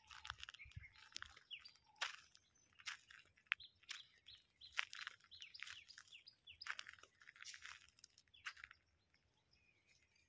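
Birds chirping: a run of short, sharp, high calls, some coming in quick bursts, that stops about nine seconds in.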